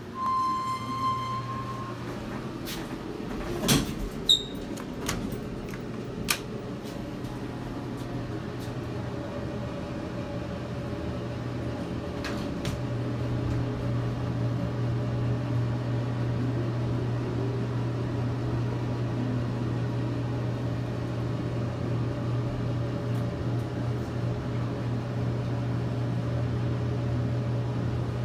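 Mowrey hydraulic elevator: a beep near the start, a few clunks of the doors closing around four seconds in, then the steady hum of the car rising under its hydraulic pump, louder from about halfway on.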